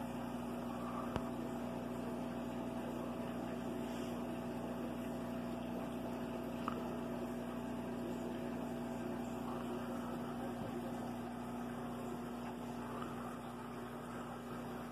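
Aquarium pump humming steadily, with one constant tone over a hiss. Two short clicks, about one and seven seconds in.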